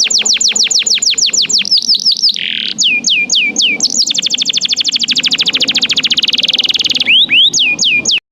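Domestic canary singing: quick series of whistled notes that each sweep downward, a short buzzy note about two and a half seconds in, then a very fast rolling trill for about three seconds, then more falling notes before the song cuts off suddenly near the end.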